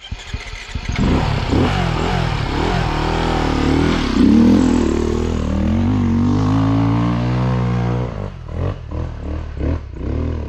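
Dirt bike engine revving hard on a hill climb. It comes in loud about a second in, the revs rise and fall, then hold fairly steady before dropping off about eight seconds in.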